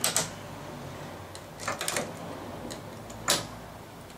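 Sharp metallic clicks of a hand transfer tool and latch needles against a knitting machine's metal needle bed as a stitch is put back onto the needles: one click at the start, a quick cluster a little under two seconds in, and another about three seconds in.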